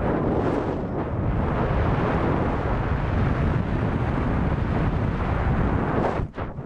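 Wind rushing and buffeting over the microphone in flight under a paraglider, a dense steady rush that drops off briefly near the end.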